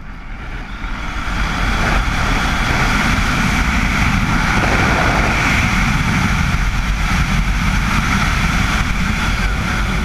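Loud rushing wind of a wingsuit flight buffeting the flyer's camera microphone, building over the first two seconds as the flyer picks up speed after the exit, then holding steady.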